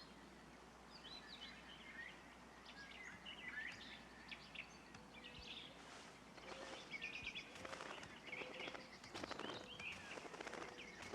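Faint bird chirps and short twittering calls, repeated throughout, with brief rustling from about halfway through.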